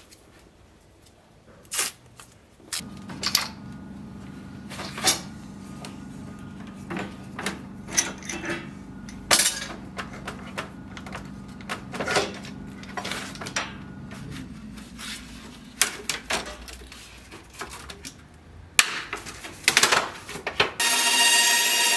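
Wooden boards and small hand tools knocked and set down on a workbench: a scatter of knocks and clicks over a steady low hum. Near the end a band saw is suddenly heard running.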